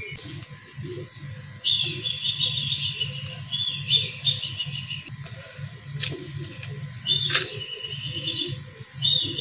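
Damp sand-cement mix squeezed and crumbled by hand in a bucket, with a soft, grainy crunching. Over it a bird chirps in quick trilled bursts, which are the loudest sound, and two sharp clicks come in the second half.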